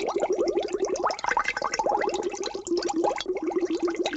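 Water bubbling fast and continuously, a dense run of quick gurgling bubbles over a steady low tone.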